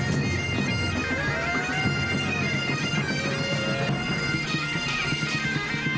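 Several bagpipes playing together in a marching band: a tune on the chanters over the steady drone.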